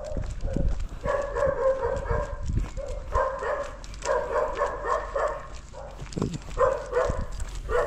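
Dog barking in long runs of barks, broken by short pauses.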